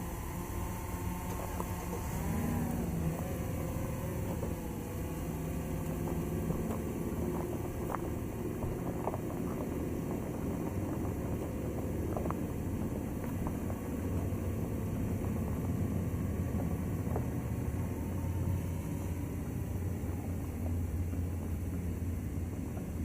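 A steady motor hum whose pitch dips and rises about two seconds in, with a few faint clicks.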